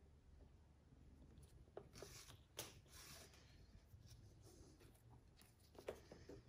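Faint rustling and scraping of thread and leather being handled during hand-stitching: the needle and thread drawn through the stitch holes of a leather handle and pulled tight. There are a few short scrapes and ticks, over a low steady hum.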